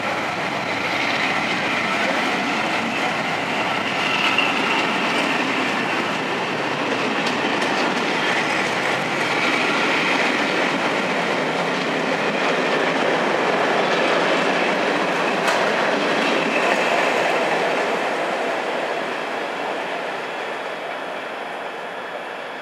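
Train running on the rails: a steady rolling rumble and hiss with faint high squealing tones, fading away over the last few seconds.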